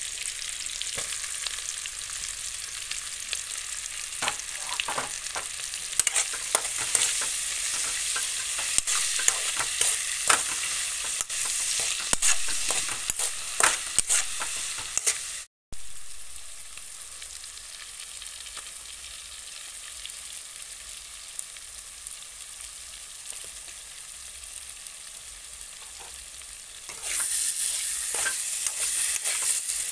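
Oil sizzling in a non-stick wok as onions and masala fry, with a metal ladle stirring and clicking against the pan through the first half. The sound cuts out for a moment about halfway, then a quieter sizzle, turning louder again near the end as tomato wedges fry.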